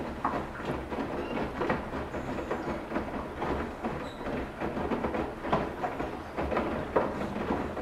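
Washing machine running a wash cycle: a low steady hum with irregular clacking and knocking from the load moving in the drum.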